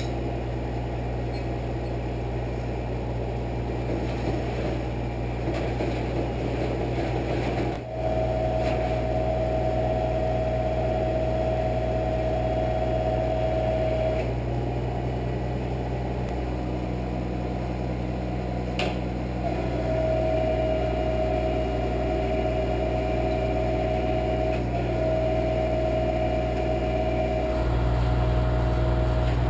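Truck-mounted crane's engine running steadily while its winch drags a heavy cast-iron lathe across wooden boards. A steady whine comes and goes twice, and the engine note grows louder near the end.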